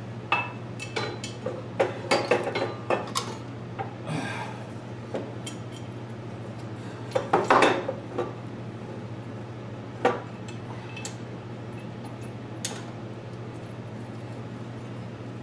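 Bolts and metal engine-mount parts clinking and knocking as they are handled and fitted, with a louder clatter about seven seconds in. A steady low hum underneath.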